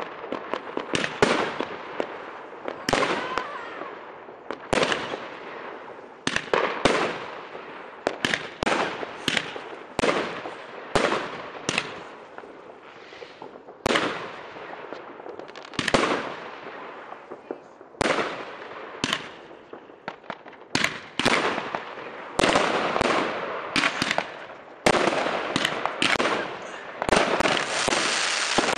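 Fireworks display: aerial fireworks bursting in a string of sharp bangs about a second apart, each trailing off in a fading crackle, running into a dense, continuous crackling near the end.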